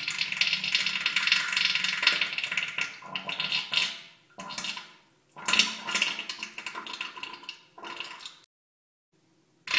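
Diarrhea sound effect: wet sputtering and splattering in several bursts with short pauses, cutting off for about a second near the end.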